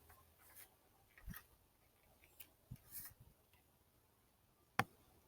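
Near silence with a few faint, short clicks and taps, the sharpest one near the end.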